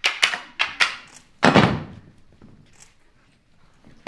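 Wooden sticks clacking together several times in a mock sword fight, followed about a second and a half in by one heavier thud on the wooden stage.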